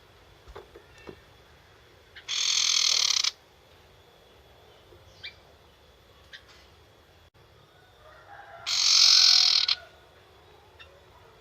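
Young wild sirtu bird giving its harsh, rattling 'nyetater' chatter call twice, each burst about a second long, with a few faint short chips between.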